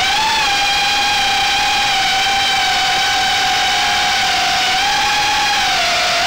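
Armattan Gecko 3 FPV quadcopter's brushless motors and propellers whining in flight, a steady high pitch that dips slightly twice near the end.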